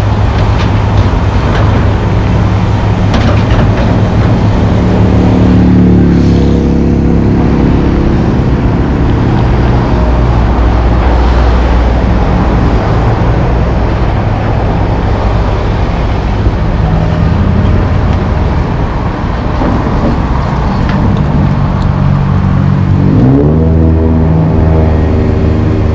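John Deere 470G track excavator's diesel engine running steadily under hydraulic load as it digs and swings loads of dirt into a dump truck. Its pitch shifts as the work changes and rises about three seconds before the end.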